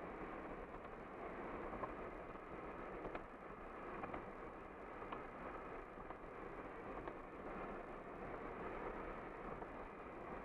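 Steady tyre and wind noise heard from inside a car driving along the road, with a few faint ticks.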